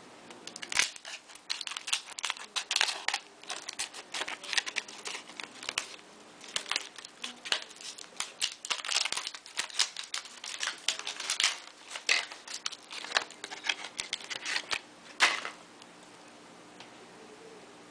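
Plastic card packaging being worked open by hand, with quick irregular crinkling and clicking that stops abruptly about fifteen seconds in.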